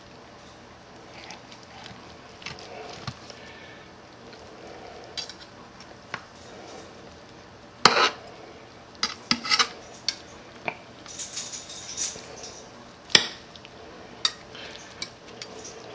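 Steel knife and fork cutting up a tender smoked chicken on a plate: soft scraping and handling with scattered sharp clinks of metal on the plate, the loudest about eight and thirteen seconds in.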